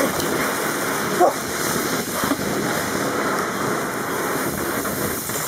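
A bucket of ice water pours and splashes over a seated person and onto the grass, against the steady fizzing hiss of a ground firework fountain burning close by. A short voice cry comes about a second in.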